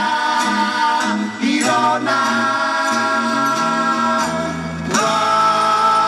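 Live band performing a song: several voices singing in harmony on long held notes over electric bass, keyboard and acoustic guitar, the chord changing every second or two.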